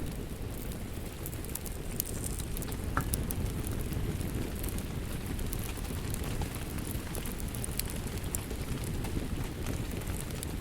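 Steady rainfall, heaviest in the low range, mixed with a wood fire crackling, with scattered sharp pops throughout.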